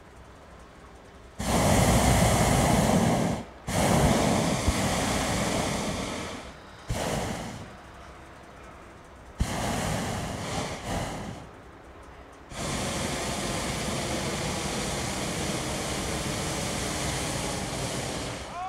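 Hot-air balloon propane burners firing in five blasts of steady roaring hiss, lasting from under a second to about six seconds, the longest near the end: heating the air in the upright envelopes of balloons standing ready for lift-off.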